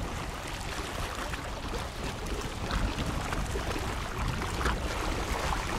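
Small sea waves washing steadily against shore rocks, with wind rumbling on the microphone.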